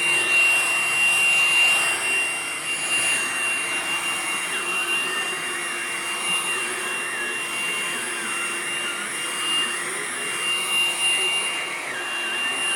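Hoover Blade+ cordless stick vacuum running steadily under a bed, its motor holding a high, even whine over the rush of airflow, with the pitch wavering slightly as it is pushed and pulled.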